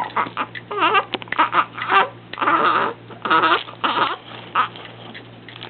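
A young child vocalising in a string of short, high-pitched squeals and babbling cries, some rising and falling in pitch.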